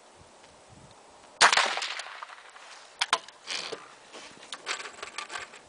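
A single rifle shot about a second and a half in, with a short echoing tail, followed by a few sharp clicks and rustling as the rifle is handled.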